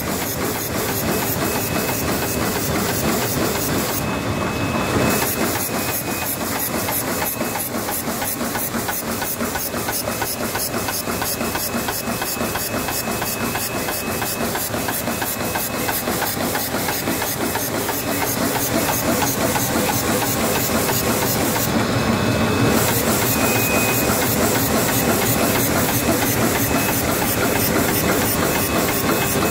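Glue patch handle plastic bag making machine running at production speed: a fast, even mechanical clatter over a steady hiss.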